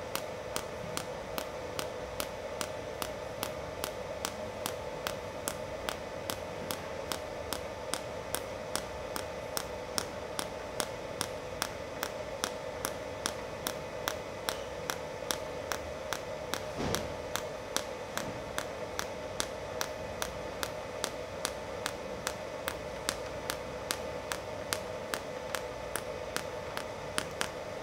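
ANDELI TIG-250 series TIG welder in low-temperature (cold) pulse mode welding 3 mm stainless steel: a regular, sharp arc ticking about three times a second over a steady hum, one tick per weld pulse.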